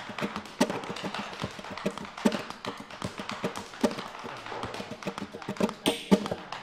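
Flamenco dancer's shoes striking a tiled floor in bulería footwork (zapateado): quick, irregular heel and toe taps, several a second, with a few louder stamps among them.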